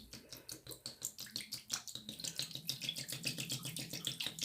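Water pouring and splashing into a small container, a dense patter of small splashes and drips that gets busier about halfway through.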